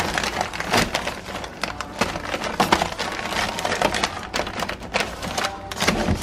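Crinkling plastic bags and the clatter of jars and packages set onto kitchen cabinet shelves, irregular clicks and rustles.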